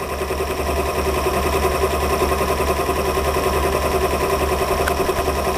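Rhombic-drive Stirling engine spun by its own generator working as a motor, running steadily with a fast mechanical whirr and clatter of the drive, pulleys and belt. Motored this way, the engine is working as a heat pump, chilling its top heat exchanger to frost.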